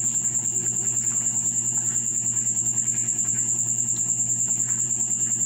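A cricket trilling steadily, a high-pitched pulsing chirp that keeps an even rapid beat, over a low steady hum.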